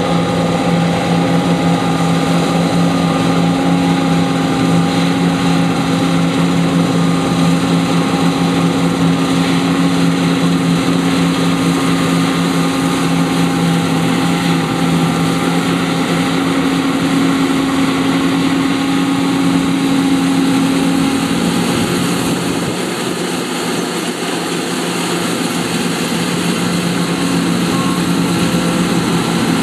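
John Deere T560 combine harvester running while cutting oats: a steady engine and machinery hum with a couple of held low tones, easing slightly in level about three-quarters of the way through.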